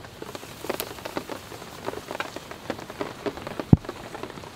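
Irregular sizzling and crackling pops from sliced onions frying in a pan on a wood-burning firebox stove, with one sharp knock about three-quarters of the way through.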